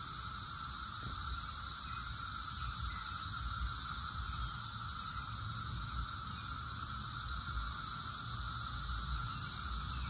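Chorus of Brood X periodic cicadas: a steady, unbroken droning hum with a higher, hissing tone above it.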